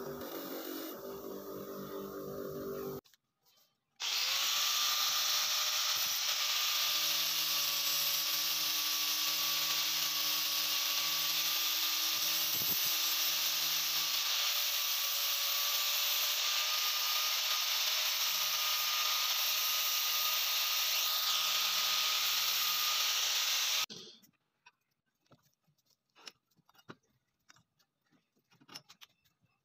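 Angle grinder with an abrasive disc grinding rust off an iron axe head clamped in a vise: a steady high whine with hiss that starts a few seconds in and cuts off about twenty seconds later, followed by a few faint clicks of handling.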